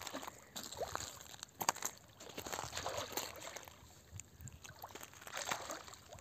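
Shallow lake water sloshing and splashing around a wading angler's legs, with a few short, sharper splashes.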